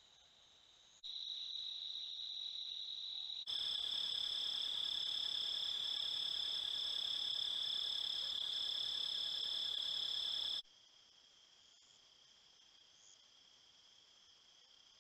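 Steady, high-pitched chorus of crickets, recorded by trail cameras. The level jumps at each change of clip: faint at first, louder about a second in, loudest from about three and a half to about ten and a half seconds, then faint again.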